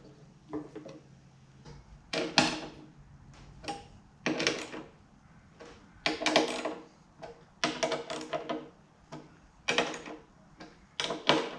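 Metal hardware and hand tools being handled while a new fuel pump is fitted to a motorcycle fuel tank: a run of short clanks and clatters every second or two, some ringing briefly.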